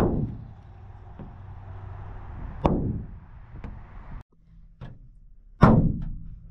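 Rubber mallet striking, three solid blows about three seconds apart, each with a short ringing tail, with a few lighter taps between.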